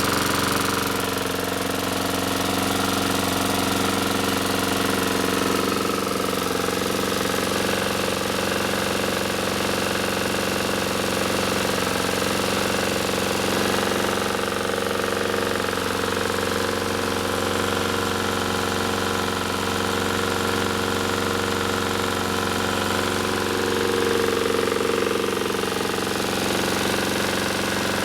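Honda GCV160 single-cylinder overhead-cam engine on a Troy-Bilt TB542 push mower running steadily at one speed, its blade turning. The blade has just been tightened, since a loose blade was the owner's best guess for an earlier odd engine noise, and it now sounds better.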